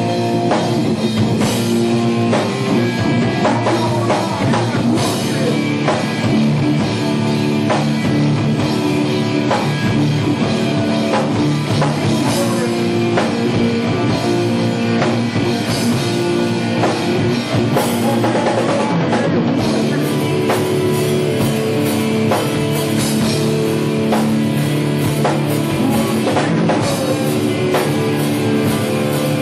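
Live rock band playing loud and without a break: electric guitars and a drum kit going at full volume on stage.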